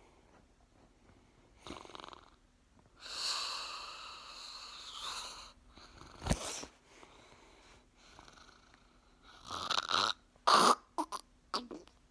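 Loud snoring: a long drawn-out snore about three seconds in, a short sharp one a few seconds later, then a run of louder, shorter snores near the end.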